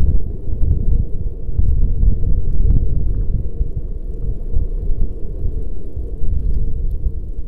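Wind buffeting a microphone carried on a moving bicycle: a loud, gusty low rumble, with a few faint ticks.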